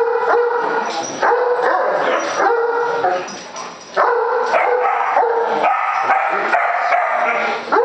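Great Dane barking over and over in drawn-out, high-pitched calls, agitated by a balloon, with a brief lull a little after three seconds in.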